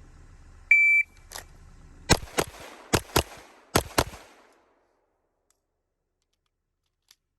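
Shot timer gives one short start beep. About a second later a pistol fires six shots in three quick pairs, left-right-left across two targets.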